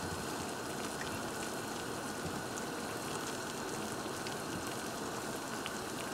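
Saucepan of water at a rolling boil on a gas burner, bubbling steadily.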